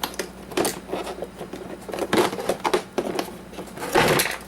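Irregular clicks, knocks and scrapes of an Oster coffee maker's plastic and metal parts being worked apart by hand as a small pipe is pulled loose. The pulling is loudest about two seconds in and again near the end.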